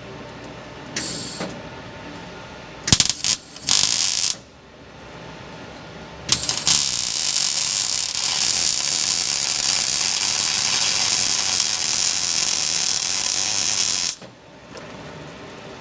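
Electric welding on a cracked belt cover: a few short tack welds, then one continuous weld run of about eight seconds that cuts off suddenly, giving a dense, even hiss.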